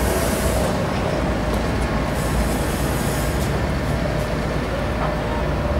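Sheffield Supertram tram moving past the platform, a steady low rumble of wheels on rail with a faint steady whine. Bursts of high hiss come at the start and again about two seconds in.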